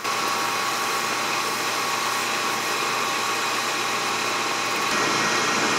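Metal lathe running with the cutting tool feeding across the end of the spinning workpiece on a facing cut: a steady mechanical noise with a few steady tones, a little louder near the end.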